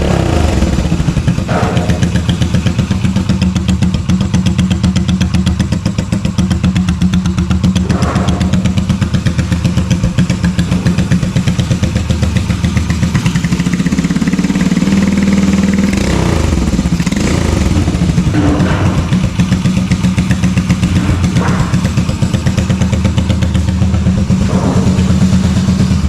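Yamaha Virago 250's 60° V-twin engine running, with a single-cylinder sound instead of the usual V-twin beat; the revs rise once about halfway through. The uneven note comes from cam chain timing set wrong, so the front cylinder fires right after the rear one.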